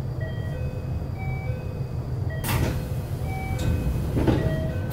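JR West 321 series electric train running at speed: a steady low rumble of wheels on rail, broken by short rushes of noise about two and a half, four and four and a half seconds in, with a louder one at the very end.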